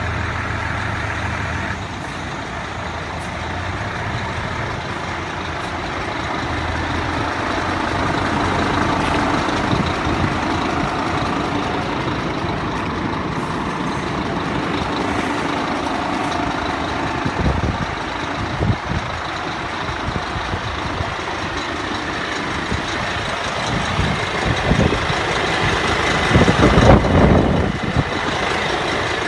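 Diesel truck engine idling steadily, with a few louder low thumps about two-thirds of the way in and again near the end.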